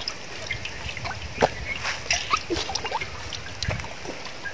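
Water dripping and trickling from a raw whole chicken into a pot of water as it is washed, with scattered small drips and splashes and one sharper drip about a second and a half in.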